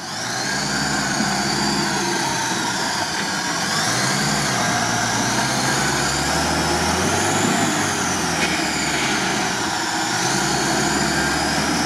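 A UAZ off-roader's engine revving up and down under heavy load as it works to drive out of a deep muddy rut, with a high whine that rises and falls along with the revs.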